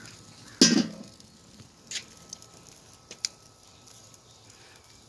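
The metal lid of a Weber kettle grill clanks loudly once about half a second in as it is taken off the grill, followed by a few light clicks and taps.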